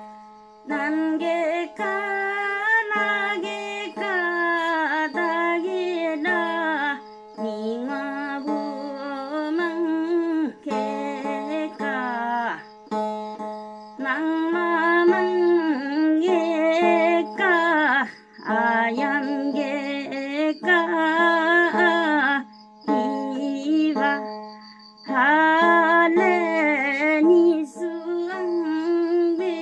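A woman singing a Limbu folk song in short phrases with wavering ornaments and brief breaks between them, over the steady drone of a single-string folk instrument with a tin-can resonator.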